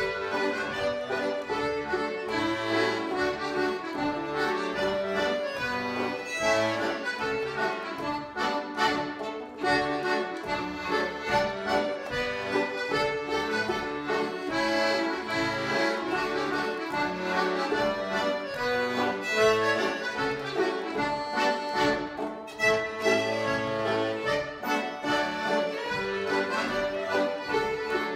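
Old-time band playing an instrumental tune together: fiddle, piano accordion, banjo and a small accordion, with the accordions loudest.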